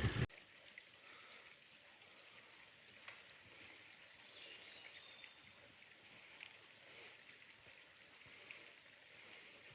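A loud rush cuts off abruptly just after the start, leaving faint outdoor ambience: a soft, even hiss with a few faint, brief high chirps.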